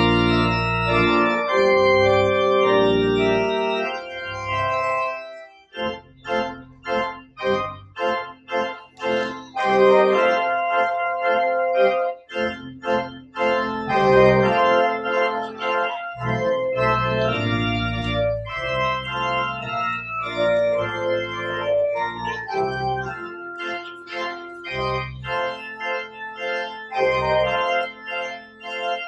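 Church pipe organ playing: held chords, with a run of short, detached chords from about six to ten seconds in, then flowing held chords again.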